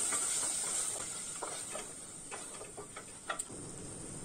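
Chicken and curd masala sizzling in an open pressure-cooker pot, the sizzle dying down as the gas is on low flame, with a few light knocks and scrapes of a wooden spatula against the pot.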